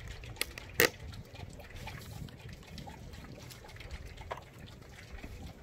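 A plastic bottle of engine oil mixed with RVS Technology treatment gel, shaken hard so the liquid sloshes inside, mixing the gel into the oil. Scattered sharp clicks, the loudest a bit under a second in.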